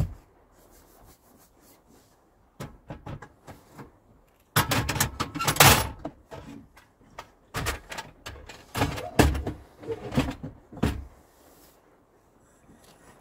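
Cooking gear and utensils being handled: a series of clicks, knocks and clatters, with the loudest, longer rustling clatter about five seconds in.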